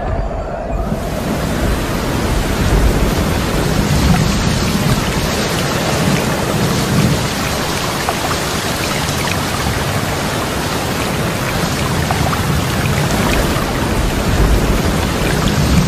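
Water rushing steadily through the spillways of a miniature brick dam, a dense, even splashing hiss that comes in about a second in.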